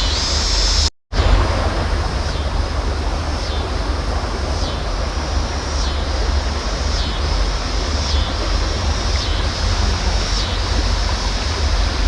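River water rushing, with wind buffeting the microphone as a low rumble. A high, steady hiss above it dips briefly about once a second, and all sound cuts out for a moment about a second in.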